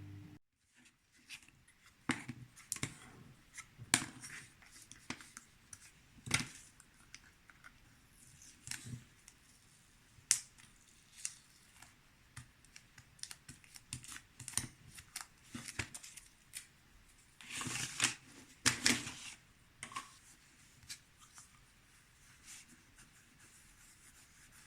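Irregular small clicks, taps and scrapes of parts and tools being handled on a workbench, with two longer scraping rustles a little past halfway.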